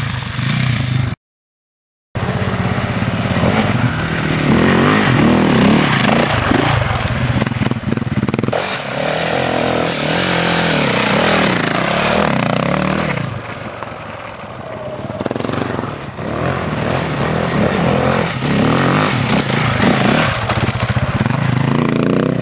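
Enduro motorcycle engine revving hard under load on dirt, its pitch rising and falling with the throttle. The sound cuts out completely for about a second near the start.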